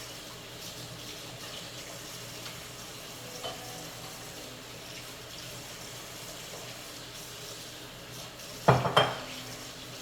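French fries frying in hot grease: a steady sizzle, with a spatula clanking twice against the pan near the end.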